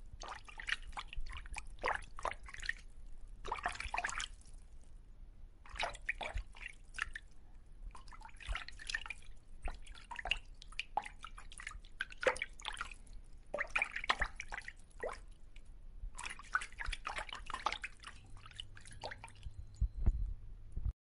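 Water dripping and splashing in irregular clusters of small drips and splashes with short pauses between, cutting off suddenly near the end.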